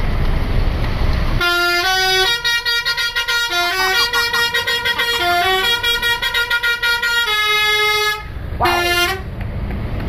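Basuri multi-tone horn on an ABS Trans tour bus playing a telolet melody. It starts about a second and a half in, runs as a string of stepped notes for about seven seconds, then gives one short extra note near the end.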